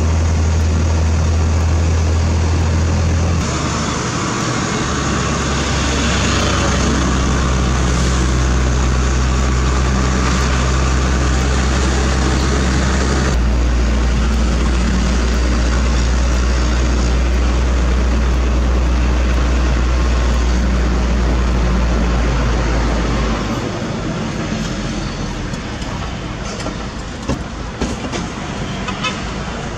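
Heavy diesel engine running steadily, its low pitch stepping down about 3.5 seconds in and again about 13 seconds in, then easing off about 23 seconds in, with a few light clicks near the end.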